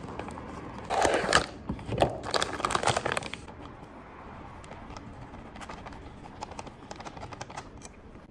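Plastic bag of pancake mix crinkling and rustling as it is handled, loudest for about two seconds starting a second in, then softer scattered crinkles as the powder is poured from the bag into a bowl.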